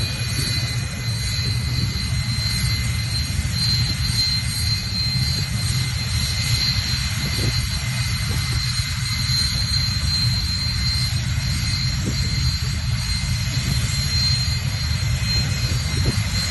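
Sukhoi Su-25 jet's engines running as it taxis: a steady low rumble with a constant high-pitched whine.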